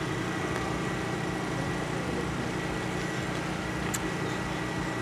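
A steady low hum with a thin, steady high tone above it, unchanging throughout.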